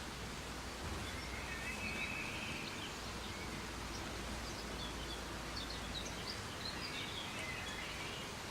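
Soft, steady rain hiss with birds chirping in the background: a short trill about a second in and scattered chirps in the second half.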